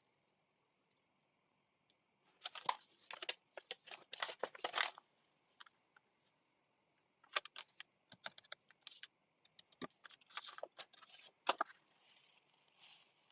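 Paper being handled, rustling and crinkling with sharp clicks and taps, in three short bouts with quiet pauses between.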